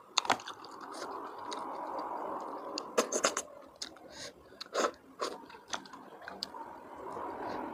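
Close-up eating of golden apple snails in spicy broth: meat and sauce sucked and slurped out of the shells, with chewing and sharp clicks of the shells, a cluster of them about three seconds in.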